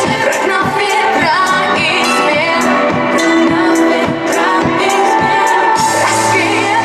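A pop song with singing over a steady beat.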